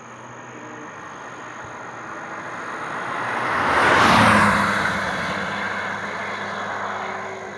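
Kawasaki ZX-10R superbike's inline-four engine roaring loud as the bike approaches and passes by, loudest about four seconds in, its pitch dropping as it moves away.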